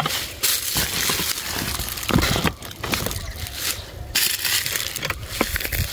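Footsteps crunching and rustling through dry leaves and weedy undergrowth, uneven, with short pauses between the steps.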